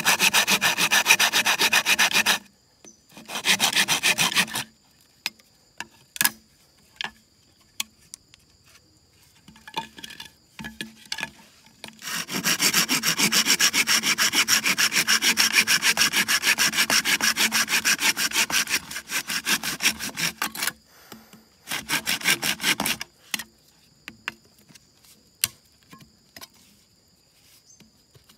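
A hand saw cutting through a green bamboo tube in quick rasping strokes. The sawing comes in runs: about two seconds at the start, a short run soon after, a long run of about eight seconds midway, and a short run after that. Scattered clicks and taps come between the runs.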